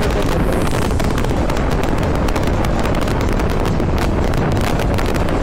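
A 200 cc motorcycle running along under way, its engine and exhaust making a loud, steady rasp full of rapid crackling pulses.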